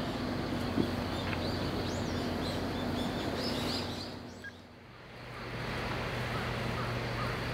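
Outdoor ambient noise with a steady low motor hum and faint bird chirps in the first half; the sound dips briefly about halfway through, then a steady low hum carries on.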